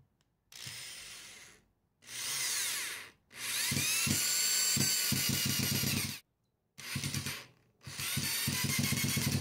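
Cordless drill driving Kreg pocket-hole screws into a 2x4 joint in five bursts of the trigger, its motor whine rising and falling in pitch as it speeds up and slows.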